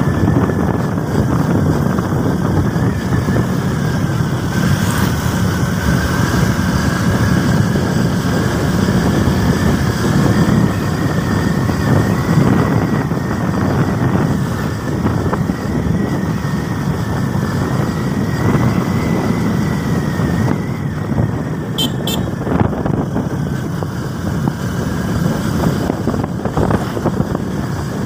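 Motorcycle running steadily along a road, its engine noise mixed with wind and road rush. A faint whine holds throughout, and two quick clicks come about three-quarters of the way through.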